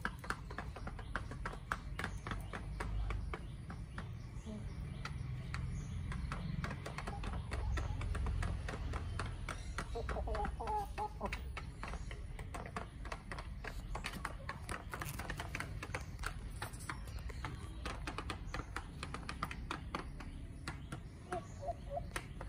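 Chickens pecking feed from a red plastic feeder pan, their beaks tapping it in rapid, irregular clicks, with a short cluck about ten seconds in.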